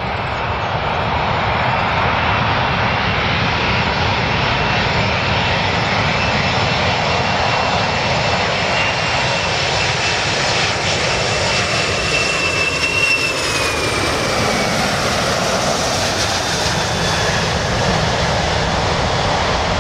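Boeing 747-400's four turbofan engines on final approach, a loud steady jet noise with a thin high whine that falls in pitch about twelve to fourteen seconds in as the airliner passes close by.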